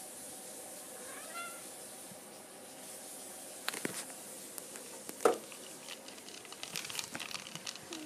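A cat gives one short meow about a second in. Then come a few sharp knocks, the loudest a little past halfway, and a run of light clicks and rustles near the end.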